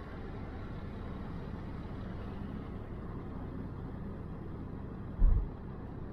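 Steady low rumble of a car driving slowly along a town street, with a single short low thump about five seconds in.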